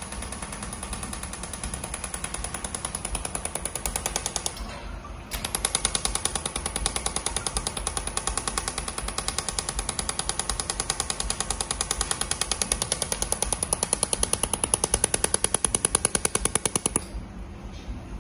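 Pulsed laser mould welding machine firing a steady run of sharp clicks, about six a second, with a high whine, as it lays weld spots along a mould seam. The clicking pauses briefly near five seconds in and stops about a second before the end.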